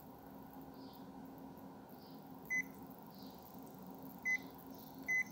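Ricoh MP 301 copier's control panel beeping as its touch-screen buttons are pressed: three short high beeps, the first about two and a half seconds in, the next about two seconds later and the last near the end, over a steady low hum.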